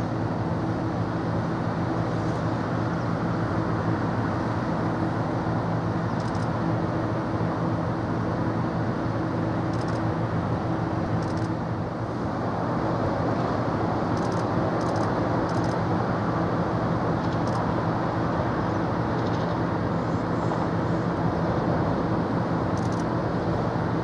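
Steady low mechanical drone with a constant hum under a wash of noise, which swells slightly about halfway through.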